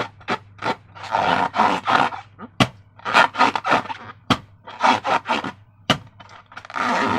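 Slime and balloons being handled: repeated squelching, rubbing strokes, some stretched out to about a second, with a sharp tap roughly every second and a half.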